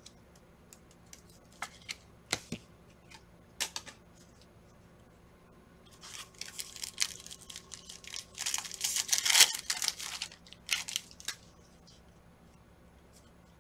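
A Panini Prizm football card pack's wrapper being torn open and crinkled: a few light taps of cards being handled, then several seconds of rasping tearing and crinkling, loudest about two-thirds of the way through.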